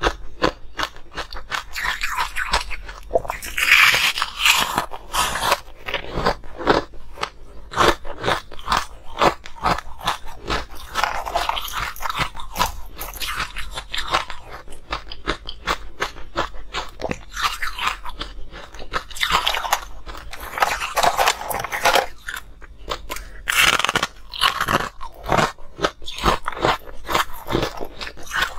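Close-miked crunching and chewing of frozen ice pieces: dense crackling crunches all through, with louder bites every several seconds.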